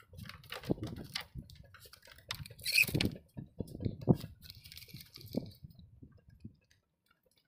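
Footsteps and light knocks on a bamboo platform's slatted deck: an irregular scatter of clicks, creaks and thuds, loudest in the middle, dying away near the end.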